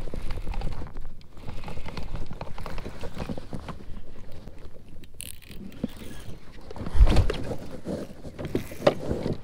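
Handling noise in a fishing kayak: irregular rubbing and knocking against the boat and gear, with one heavy thump about seven seconds in.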